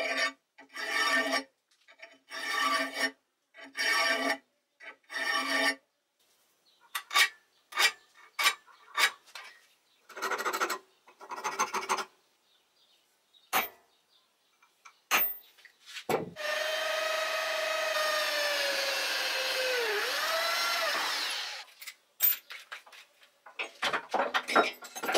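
A hand file rasping back and forth on a steel part held in a bench vise, five even strokes about a second apart, then scattered sharp metal clicks and a few more strokes. Later an electric power tool's motor runs for about five seconds, its pitch dipping briefly as it takes load, followed by a few more clicks.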